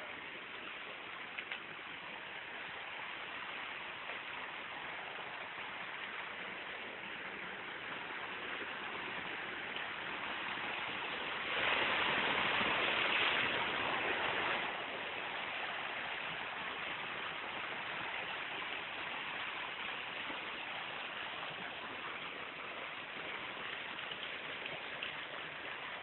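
Steady rush of water pouring over rocks at a waterfall and its stream, much louder for about three seconds near the middle.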